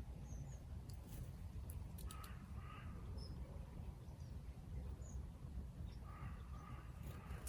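Faint outdoor ambience with a steady low rumble, a few tiny high bird chirps and scattered small clicks. Two longer, rougher calls come about two seconds in and again near the end.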